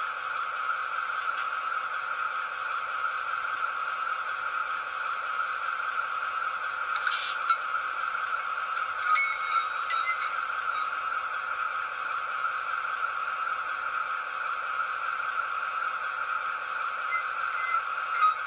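Diesel engine sound from a model locomotive's sound decoder (ESU LokSound 5, Maybach engine sound file) running steadily through the model's small loudspeaker, thin and without any bass, with a few short clicks.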